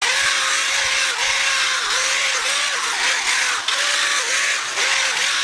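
Small handheld power sander with a twist-lock fiber sanding disc grinding down a cast alloy motorcycle wheel: a steady whine over a hiss, the whine dipping in pitch every half second or so as the disc is pressed into the metal.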